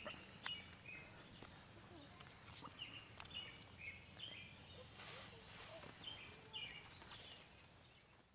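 Faint birds chirping: short calls every second or so over a soft outdoor hush, with a few light crinkles and taps as a foil food pouch is squeezed out.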